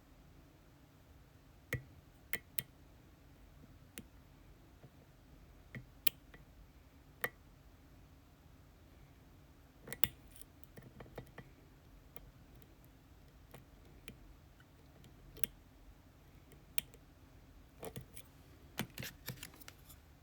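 Small, sharp metallic clicks from lockpicking tools working an ASSA Twin Exclusive lock cylinder, scattered singly with a quick cluster of clicks near the end.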